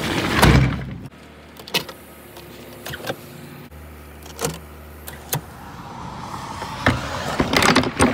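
Car sounds heard inside the cabin. A loud knock comes about half a second in. Then a low steady hum runs with a few sharp clicks, and denser knocks and handling noise build near the end.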